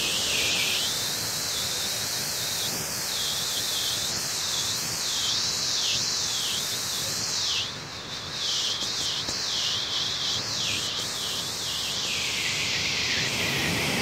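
Waterfall cascades rushing over rock: a steady hiss of falling water that dips briefly about eight seconds in.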